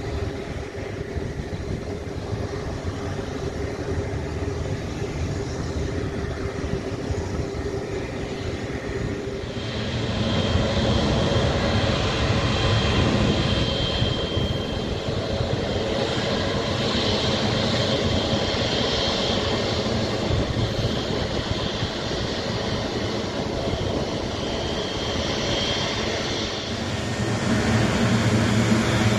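Jet airliner engines running at taxi power: a steady rumble with a hum. About ten seconds in it steps up louder, with a high turbofan whine, from a Saudia Boeing 777-300ER's GE90 engines taxiing past, and grows louder again near the end.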